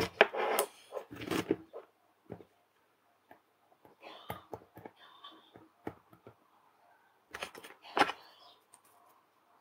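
Small clicks, taps and rustles of hands handling jumper wires and a soldered LED circuit board on a cork mat, touching wire ends to its pins. A denser run of taps comes in the first second or so and another shortly before the end, with sparse light ticks between.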